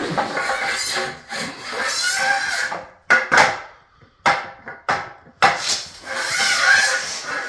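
A long aluminium level sliding and scraping across a bare concrete slab while checking it for a hump, in several rough strokes of different lengths with short pauses between them.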